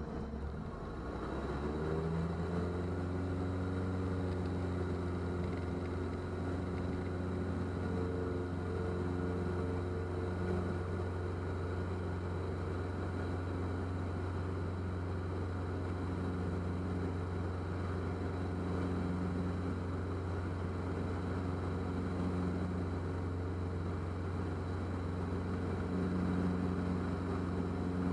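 Diamond DA40's piston engine and propeller heard from inside the cockpit, rising in pitch over the first two seconds as power comes up for takeoff. It then holds a loud, steady full-power drone through the takeoff roll and climb-out.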